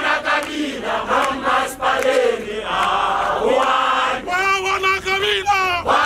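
Crowd of marchers singing a protest chant together, many voices in phrases that break every second or two.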